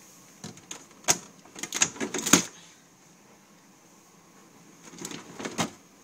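Vegetable and salad drawers at the bottom of a Samsung Showcase fridge freezer being slid and handled: a run of knocks and rattles from about half a second in to two and a half seconds, then a shorter bout about five seconds in.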